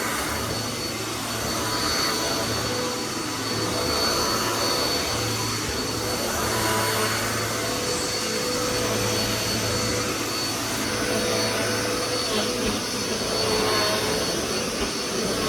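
Dirt Devil Power Max upright vacuum cleaner running, a steady loud motor whine with a high tone over a constant rush of air. The owner puts the changed motor sound down to wear.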